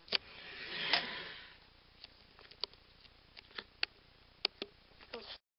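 Light clicks and taps of a 1/64-scale toy John Deere 4010 tractor and its weighted pulling sled being drawn along a board track. A scraping rush swells to a sharp click about a second in, and scattered single clicks follow.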